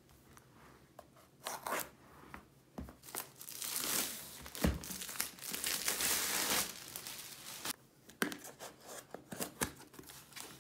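Clear plastic wrap tearing and crinkling as it is pulled off a long cardboard kit box, loudest through the middle, with a single thump a little under halfway. Near the end come short scrapes and clicks as the box's cardboard end flaps are opened.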